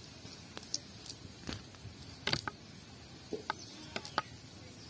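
Scattered light clicks and rustles of a cast net being picked through by hand, about a dozen short ticks at uneven intervals over a faint steady background.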